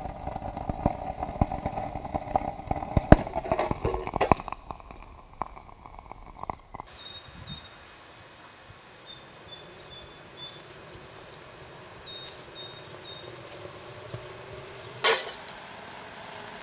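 Aluminium foil reacting with liquid bromine: dense crackling and sharp pops with a steady hiss for the first several seconds. Then a quieter stretch with faint high chirps, broken about fifteen seconds in by a single sharp crack as the next batch of bromine flares up.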